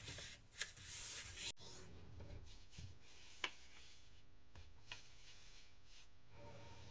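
A square sheet of origami paper being folded along its diagonal and creased flat by fingertips: louder paper rustling in the first second and a half, then faint rubbing with a few light ticks.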